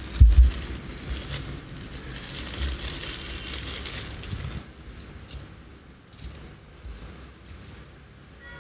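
Clear plastic bag crinkling and rustling in the hands, with the small plastic building-brick pieces inside rattling and clicking against each other. A few low handling knocks come about half a second in.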